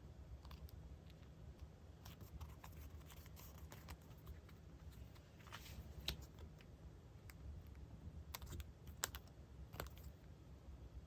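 Faint, scattered light clicks and small rustles of craft supplies being handled by hand, with a couple of sharper ticks about six and nine seconds in, over a low steady hum.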